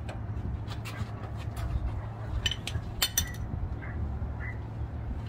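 Hand tools clinking on metal while the bell housing bolts of a bus transmission are being worked loose: scattered light metallic clinks and taps over a steady low hum.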